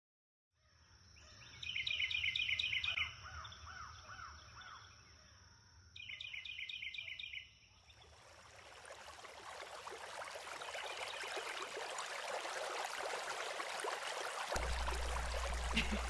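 Outdoor ambience: birds singing two short bursts of quick repeated chirps over a steady high whine, then a creek running, its rushing slowly growing louder. A low hum comes in near the end.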